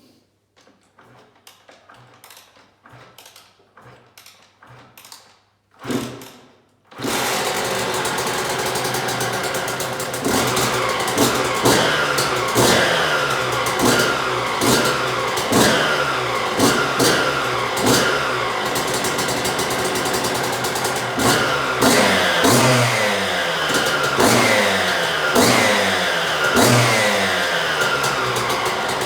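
1998 Suzuki RM125's single-cylinder two-stroke engine being kick-started from stone cold on choke: faint regular clicking, a loud burst about six seconds in, then it fires and keeps running. The throttle is blipped about once a second, each rev rising and falling back.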